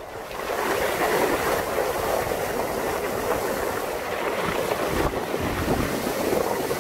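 Water rushing and spraying as a SsangYong Korando Sports pickup drives through a shallow river, a steady splashing hiss with wind buffeting the microphone mounted low on the truck's side; the low rumble grows stronger near the end.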